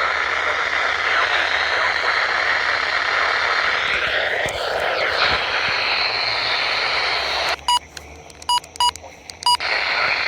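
Weather-radio receiver hissing with static on a weak signal, with a brief swooping whistle in the static about halfway through. About three-quarters of the way in the hiss drops away and short, broken beeps of a single tone come through several times in quick succession.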